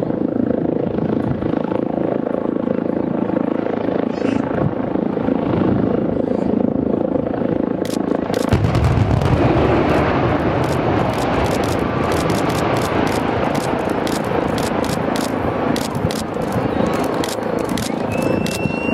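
Controlled-explosion demolition of a high-rise block of flats: a long, deep rumble that grows heavier about eight seconds in. Many sharp claps come in over it from then on and grow thicker toward the end, with a short rising whistle near the end.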